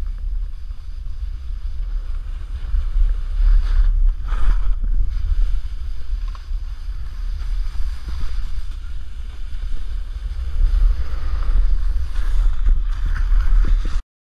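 Wind buffeting the microphone of a pole-mounted camera during a snowboard run, a heavy low rumble, with the hiss of the snowboard sliding and carving over snow swelling now and then. It cuts off abruptly near the end.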